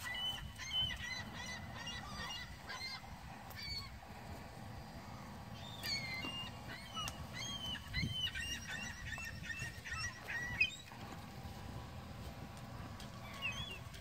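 A flock of gulls calling, many short high cries overlapping. The calls come in a bunch at the start and a busier one from about six to ten seconds in. A sharp knock comes about ten and a half seconds in.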